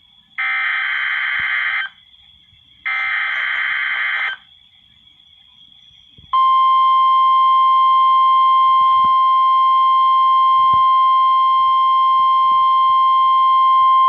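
NOAA Weather Radio weekly test alert played through a Realistic 12-141 weather radio's speaker. Two short harsh, buzzy digital bursts of the SAME header come about half a second and about three seconds in. After a short gap, the steady 1050 Hz warning alarm tone starts about six seconds in.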